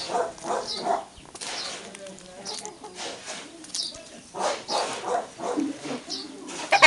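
Silver Appenzeller Spitzhauben chickens clucking in short runs of calls, with high chirps over them, quieter for a couple of seconds in the middle, and a loud call right at the end.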